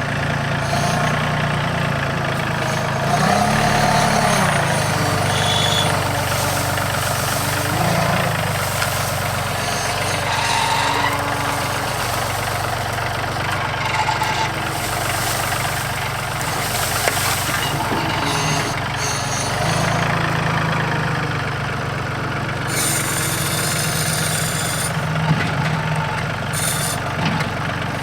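Yanmar YT235 tractor's diesel engine running steadily, its pitch rising briefly a few times as it works, with a short hiss-like noise about two-thirds of the way through.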